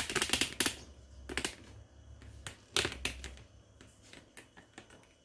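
Handling noise from a phone held close to its microphone: irregular clicks and rustles, loudest in the first second and again about three seconds in, over a low steady hum.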